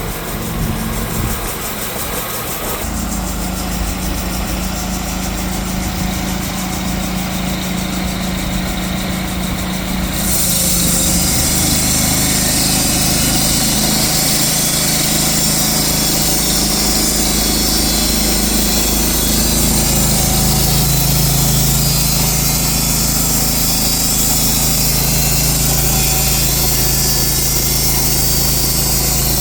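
Engine of a TTP 600 Premium mobile band sawmill running steadily. About ten seconds in it gets louder and a high hiss joins it.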